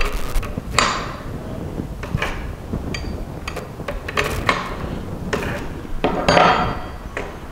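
Flat spanner on a wood router's collet nut as the nut is loosened to change the bit: a series of sharp metal clicks and knocks, roughly one a second, with a longer, louder rattle about six seconds in.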